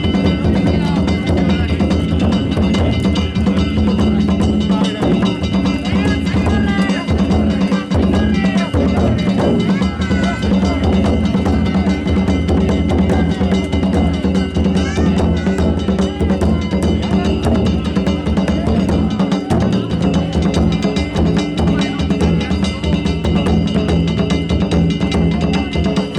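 Danjiri festival float's hayashi: taiko drums beaten in a fast, dense rhythm over steadily ringing hand gongs, played without a break.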